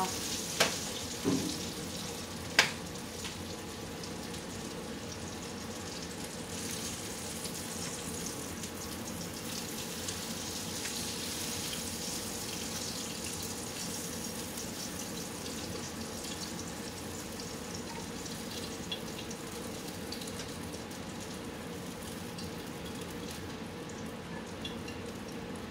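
Heat-and-serve sausage links sizzling steadily in a small frying pan as they finish cooking, with two sharp taps of a metal fork against the pan within the first three seconds.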